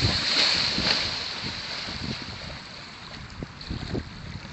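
Heavy splashing as a person runs into a lake and plunges in, loudest in the first second, then dying down as the water settles.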